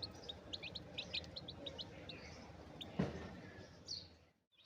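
Young chicks peeping, a rapid run of short, high cheeps. A single dull thump about three seconds in.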